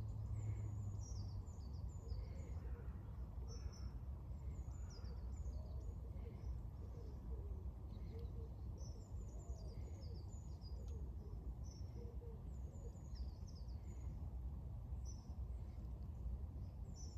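Small birds chirping: many short, high calls come and go throughout, over a steady low background rumble.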